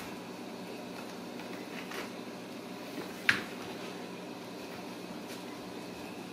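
A few short, sharp taps and scrapes over a steady low room hum, the loudest just past three seconds in: Ragdoll kittens' paws and claws on a cardboard scratcher.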